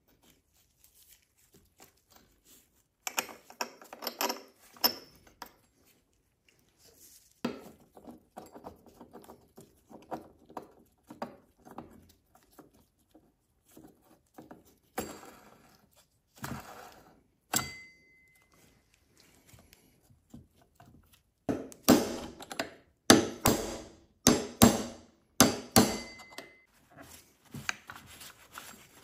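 Hand work on chainsaw parts on a wooden workbench: scattered clicks, knocks and rubbing from parts and tools being handled and set down, with a loud run of sharp knocks in the last third and, twice, a short metallic ring.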